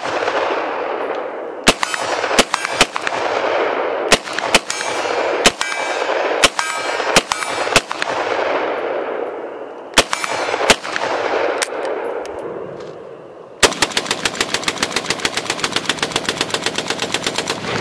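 Sig Sauer MCX Rattler short-barrelled rifle firing about fourteen single shots at an uneven pace, each followed by a long rolling echo. Near the end an AK-pattern pistol fires a rapid, even string at about ten shots a second.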